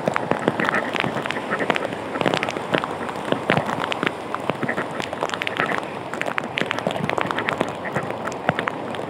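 Sea surf washing in the shallows, a steady rush of water with many small crackling splashes.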